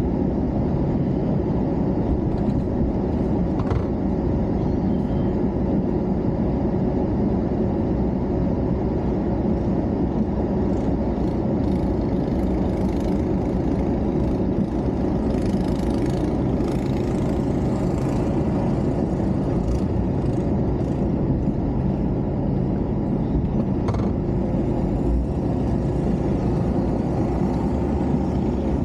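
An engine running steadily with a constant low drone and a faint steady whine, holding at an even level throughout.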